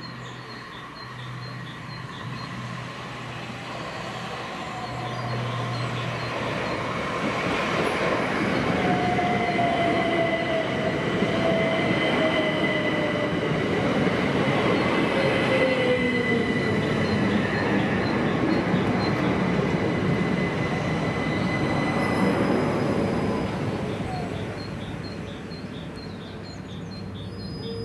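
Southern Class 377 electric multiple unit running slowly into the platform and braking. It rises to a loud rumble of wheels and motors with a falling whine and a steady high-pitched tone, then eases off near the end as it comes to rest.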